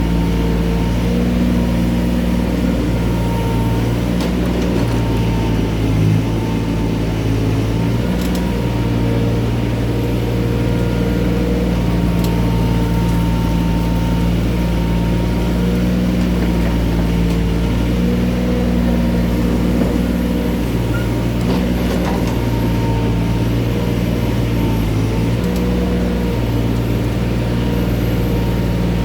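Mini excavator's diesel engine running steadily under working load, its note shifting a little as the machine works, with a thin steady whine above it.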